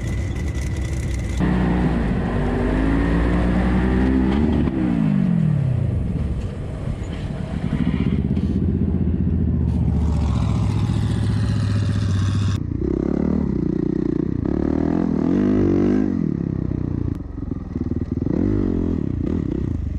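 Honda CRF450R dirt bike's single-cylinder four-stroke engine revving up and down while riding, its pitch rising and falling repeatedly, with several abrupt cuts in the sound.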